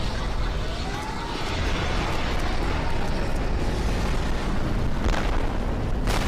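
Explosion sound effects: a steady, dense rumble of blasts, with two sharp bangs about a second apart near the end.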